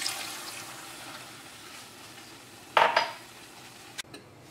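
Water poured into an aluminium pressure cooker over chopped vegetables, splashing against the wooden spatula in the pot. About three seconds in comes one loud metal clank as the lid goes onto the cooker, then a sharp click about a second later.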